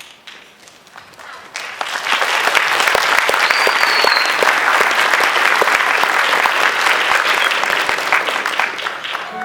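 Theatre audience applauding after a song. The clapping builds over the first two seconds and then holds steady, with a short high whistle from the crowd about three and a half seconds in.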